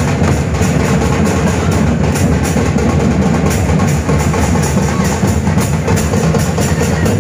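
A group of dhol drums beaten together in a loud, steady, fast rhythm.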